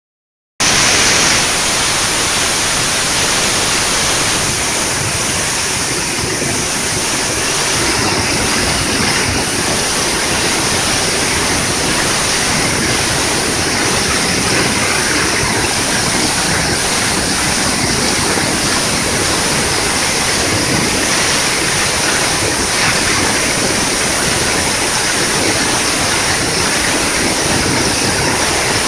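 Waterfall, the Odaki ('male falls') of Imose Falls, pouring steadily: a loud, even rush of falling water that sets in abruptly about half a second in and holds without change.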